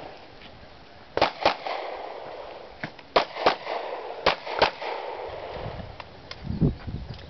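Pistol shots during an IDPA stage run: three quick pairs of shots about a third of a second apart, with a weaker single shot before the second pair.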